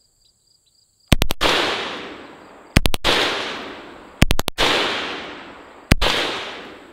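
M2 carbine in .30 Carbine firing full auto in four short bursts of a few rapid shots each, every burst ringing out in a long echo that fades over about a second and a half.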